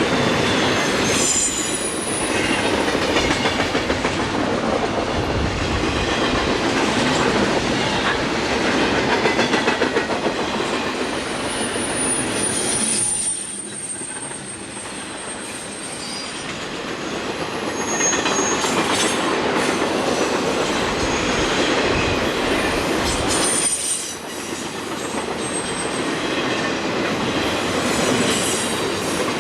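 Freight train cars rolling past: steady wheel-on-rail rumble with clickety-clack over the rail joints and thin, high wheel squeals now and then. The sound dips in loudness about halfway through and again near the end.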